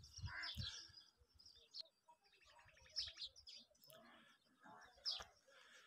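Faint, scattered bird chirps: a few short high calls near the start, about three seconds in and again about five seconds in.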